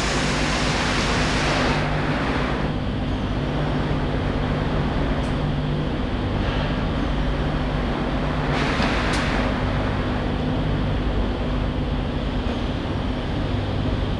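Electro-pneumatic pad printing machine for computer keyboards cycling, with a steady low hum. Two spells of air hiss from the pneumatic cylinders come at the start and again about nine seconds in, with a few light clicks.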